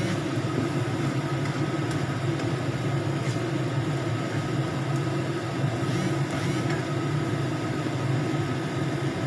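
Tomato sambal frying in a wok over a steady low hum, with a few faint scrapes of a spatula stirring it.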